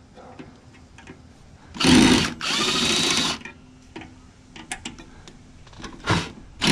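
Cordless drill-driver running in two short bursts, backing out a screw, its motor giving a steady whine; a few light clicks and a brief third run follow near the end.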